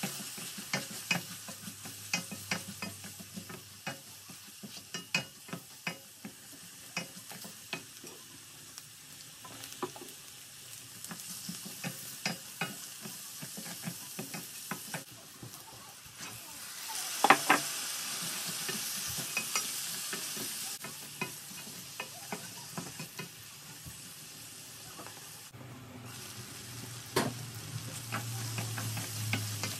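A wooden spatula stirs and scrapes through frying onions and spices in an enamel wok, knocking against the pan many times over a steady sizzle. The sizzle grows louder for a few seconds just past the middle.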